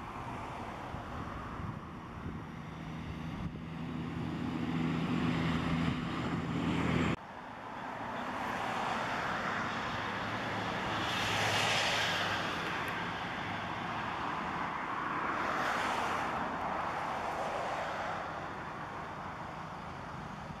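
Outdoor background of passing vehicles. A steady engine hum builds for several seconds and cuts off suddenly about seven seconds in. Then traffic noise swells and fades twice, like two vehicles going by.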